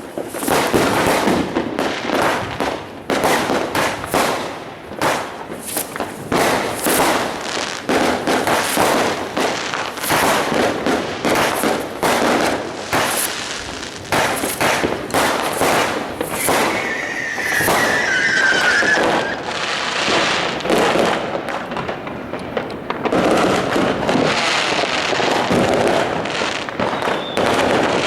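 Dense fireworks going off: a continuous run of bangs and crackling from many firecrackers and rockets, with a wavering whistle about two-thirds of the way through.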